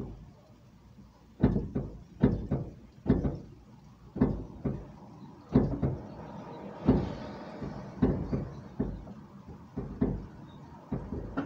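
Irregular knocks and thumps on a car's hood, about fifteen of them, heard from inside the cabin as someone fumbles at the front of the hood to open it.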